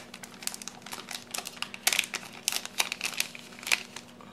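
Clear plastic sticker-pack sleeve crinkling as it is handled and the sticker sheets are slid out: irregular crackles, with a few louder ones about two and nearly four seconds in.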